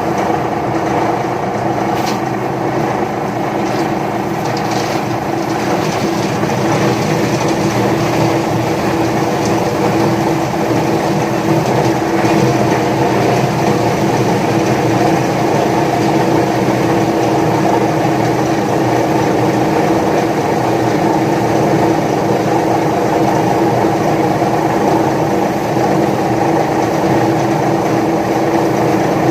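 Paper shredder running steadily, its motor giving a constant hum with a few faint clicks in the first seconds.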